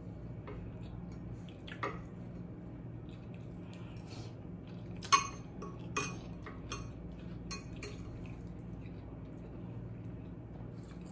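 Metal fork clinking and scraping against a glass bowl of fried cabbage: a few sharp clinks, the loudest about five seconds in, over a steady low hum.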